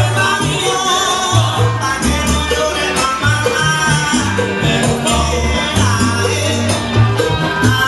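Salsa music with a steady, repeating bass line under sustained melody lines, in the style of 1970s salsa played from vinyl records.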